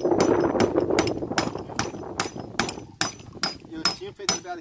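A hammer drives a nail into a wooden board in rapid, even blows, about four to five a second, each with a short metallic ring. The blows grow lighter after about three seconds.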